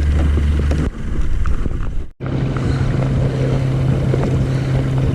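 Steady hum of a boat engine on the water, broken by a sudden cut about two seconds in, after which a steady engine hum at a slightly higher pitch carries on.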